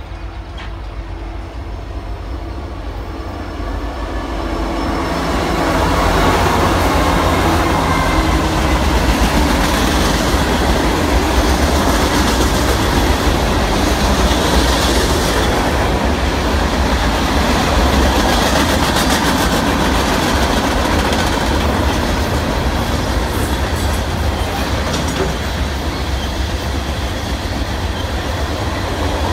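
Union Pacific manifest freight train approaching and passing close by. The sound grows louder over the first six seconds or so, then settles into a steady rumble and rattle of freight cars rolling past on steel wheels.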